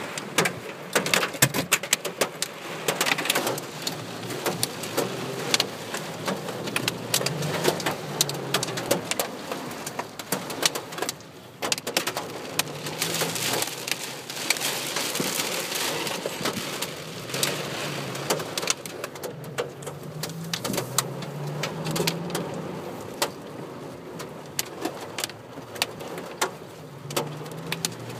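Hail pelting the roof and windshield of a Toyota Tacoma pickup, heard from inside the cab: a dense, loud rattle of sharp hits that eases briefly partway through, then picks up again.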